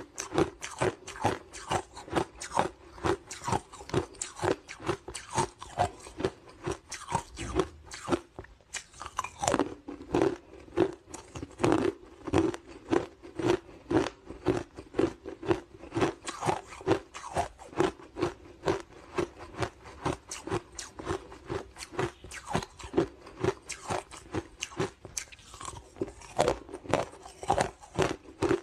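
Hard ice cubes coated in matcha green tea powder being bitten and chewed: a steady run of sharp crunches, about two or three a second, with a brief lull about eight seconds in.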